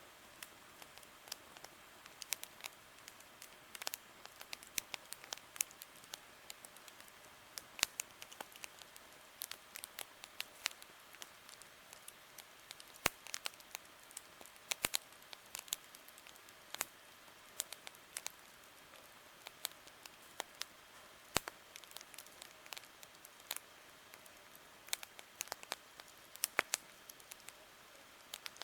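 Wood campfire crackling, with frequent irregular sharp pops and snaps over a faint steady hiss.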